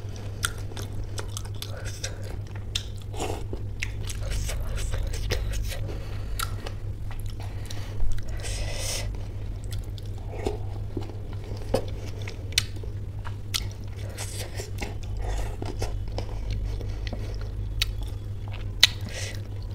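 Close-miked mouth sounds of someone chewing soft, wet spicy pea curry and samosa, with many small wet clicks and smacks and one louder noisy mouth sound about eight seconds in. A low steady hum runs underneath.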